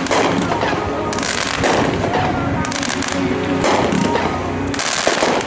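200-gram consumer firework cake firing, a shot and burst about once a second with crackle between them.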